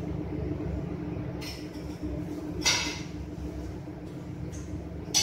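Tableware clinking at a dinner table: two short, sharp clinks about a second and a half and close to three seconds in, with another at the very end, over a steady low hum.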